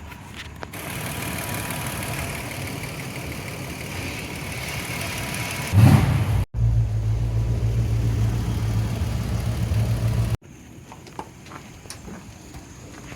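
Truck engine being jump-started: a whirring cranking stretch, then it fires with a loud burst about six seconds in and runs with a steady low hum. The sound cuts away abruptly a few times, and near the end only faint clicks remain.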